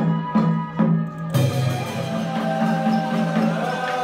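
Traditional Vietnamese water-puppet music: drum and wood-block strikes about two and a half times a second over a pitched melody. About a second and a half in, the sound changes abruptly to held, wavering notes with a steady hiss over them.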